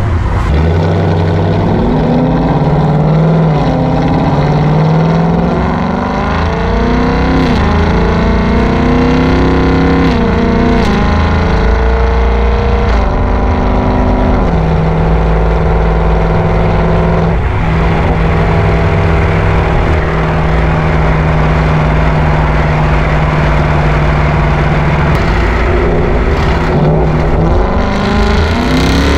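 Ford Mustang 5.0 GT's V8 through a Borla ATAK cat-back exhaust under way: the revs climb and drop through several gear changes, then hold a steady cruise for about ten seconds in the second half.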